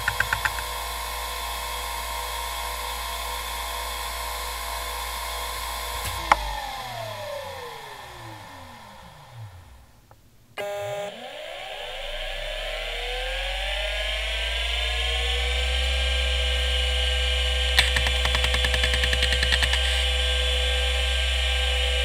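Conner Allegheny CP30104H IDE hard drive spinning with a steady whine, then switched off with a click about six seconds in, its whine falling as the platters spin down to near silence. About ten and a half seconds in a Conner Jaguar CP30174E powers up, its spindle whine rising as it spins up to speed. A burst of rapid head-seek clicks follows at about eighteen seconds, then a steady whine.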